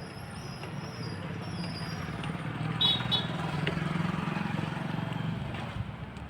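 An engine running steadily with a low, pulsing hum that grows louder in the middle. A couple of short metallic clinks come about three seconds in.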